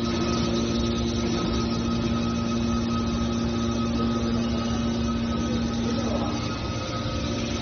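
Hydraulic metal baler running: the motor and hydraulic pump give a steady hum with a few constant tones over machine noise, the lowest tone fading about six seconds in.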